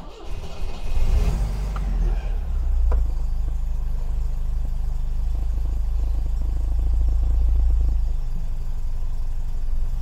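1980 MGB GT's 1.8-litre B-series four-cylinder engine starting: it catches within about a second and settles into a steady idle.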